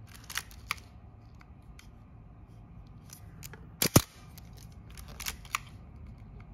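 Minolta SRT 201 35mm SLR being worked by hand: a loud double click of the shutter firing a little before four seconds in, mirror slap and shutter close a split second apart at a slow shutter speed, with smaller mechanical clicks shortly after the start and again a little after five seconds from handling the camera's controls.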